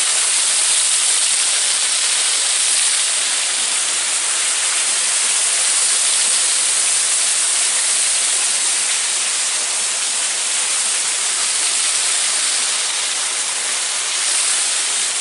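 Waterfall: a steady rush of falling water with no breaks.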